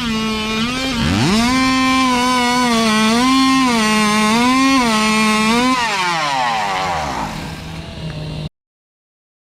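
Two-stroke chainsaw revved up to full throttle, its high whine dipping and recovering as it cuts, then throttled back and winding down, while a second engine holds a steady lower note. The sound cuts off suddenly near the end.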